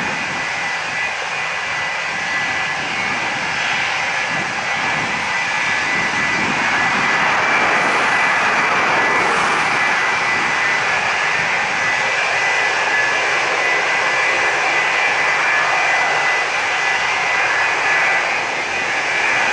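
Boeing 767-300's twin jet engines at taxi power, a steady whine with a high thin tone, growing slightly louder a few seconds in.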